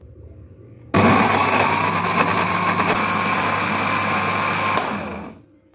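Electric countertop blender motor switched on, grinding shallots, garlic and spices into a wet paste. It starts abruptly about a second in, runs steadily with a high motor whine for about four seconds, then winds down and stops near the end.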